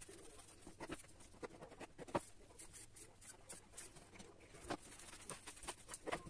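Kitchen handwork: hands rolling soft gnocchi dough on a floured board, with scattered light taps and knocks, the sharpest about two seconds in, and a knife tapping on the board near the end.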